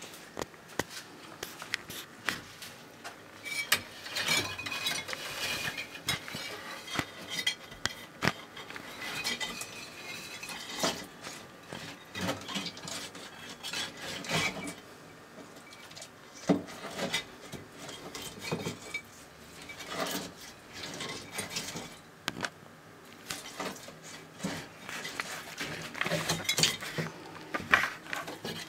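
Dumeril's monitor lizard feeding on a wooden enclosure floor: irregular clicks, knocks and scrapes of its claws and jaws against the board and the food, in busier bursts here and there.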